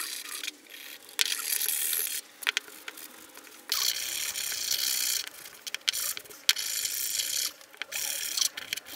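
A hand brush scrubbing rust off an old steel plane iron, bristles rasping over the metal in several bouts of about a second each with short pauses between them.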